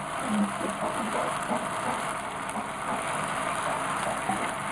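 Chopped onions and green chilies sizzling in hot oil in a frying pan, a steady hiss, with a few light taps of a plastic spoon against the pan.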